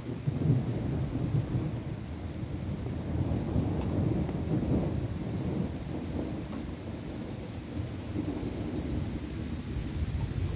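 A long peal of thunder that breaks suddenly and rolls on as a low rumble, over the steady hiss of rain.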